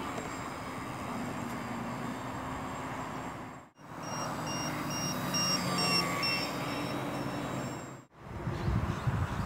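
Electric RC aerobatic plane's brushless motor and propeller buzzing steadily in flight, in segments broken by two abrupt cuts. A run of short, evenly spaced high beeps comes in the middle, and wind buffets the microphone near the end.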